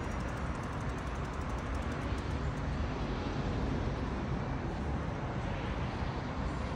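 Steady outdoor background noise: an even low rumble with hiss above it, with no distinct events.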